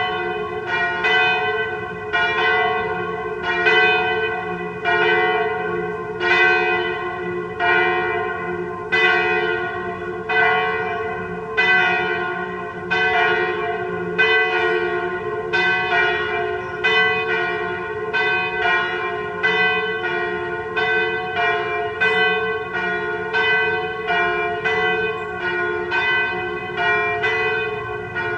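Two swinging church bells ringing a partial peal: the 983 kg Sint-Martinus bell in F (cast 1950 by Michiels of Tournai) and the 771 kg Sint-Michaël bell in G-flat (cast 1836 by Van Aerschodt of Leuven). Their strokes follow one another without a break, the two notes overlapping over a steady hum.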